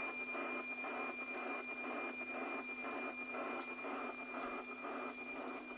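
NOAA 15 weather satellite's APT image signal coming out of a Yaesu FT-847 receiver: a steady high whistling tone with a regular tick-tock beat about twice a second, over radio hiss. Each beat marks one scan line of the weather image being sent down.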